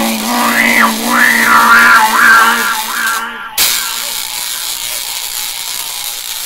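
Sci-fi machine sound effect for the 'thing maker': a steady electronic hum with warbling tones swooping up and down over it. It cuts off abruptly about three and a half seconds in, leaving a steady hissy whir.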